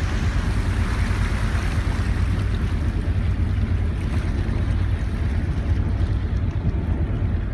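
A passenger ferry's engine runs steadily underway as a low rumble, with a rush of wind and water over it that fades about halfway through.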